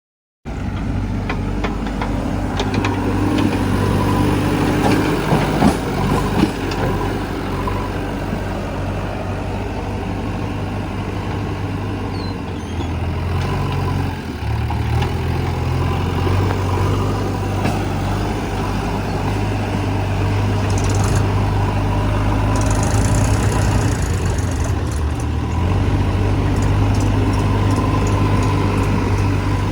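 Heavy diesel engine of a JCB 3DX backhoe loader running while loading, its note shifting about halfway through, with a few knocks early on and two short hisses later.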